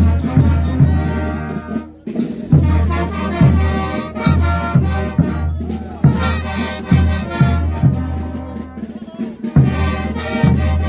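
Bolivian brass band playing carnival dance music for the ch'utas: brass playing together over a steady bass drum beat, breaking off briefly about two seconds in.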